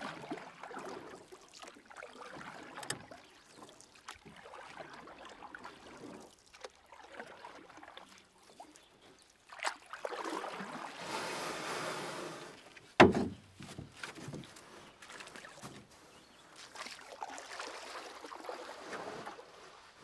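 Water washing and trickling in swells that rise and fade, the longest wash in the middle, with one sharp knock just after it.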